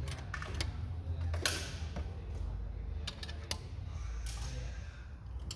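Irregular light metallic clicks and taps as clutch plates are pressed into place in the aluminium case of a Jatco JF506E automatic transmission, over a steady low hum.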